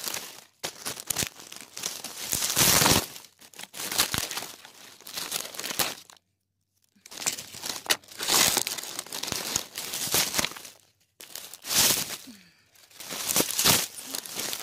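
Close rustling and scraping handling noise as a phone is grabbed and moved about, things rubbing right against its microphone, in irregular bursts with a short silence about six seconds in.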